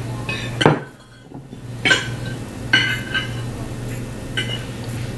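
Cutlery clinking against dinner plates, a few sharp clinks with a short ring, the first and loudest under a second in, over a steady low hum.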